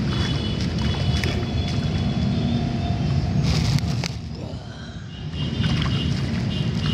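Steady low rumble of wind and handling noise on a handheld phone microphone, with sloshing of muddy water as a hand digs among rocks; the rumble drops away briefly about four seconds in.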